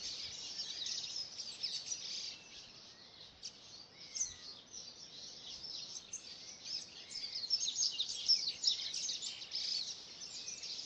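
A dense chorus of many birds of the Brazilian Cerrado chirping and calling at once, short high calls overlapping one another. It thins out a little in the middle and grows busier again in the second half.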